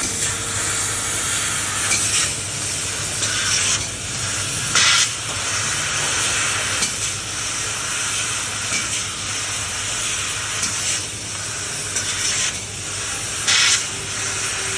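Laser cutting machine cutting stainless steel sheet: a steady hiss and crackle of the cut over a low machine hum, with two short louder hissing bursts, one about five seconds in and one near the end.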